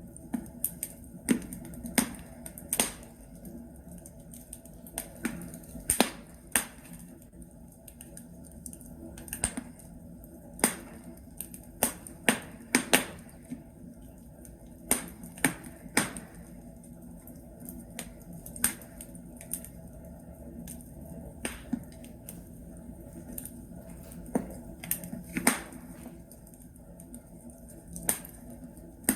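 Logs burning in a fireplace, crackling with irregular sharp pops and snaps over a steady low hiss.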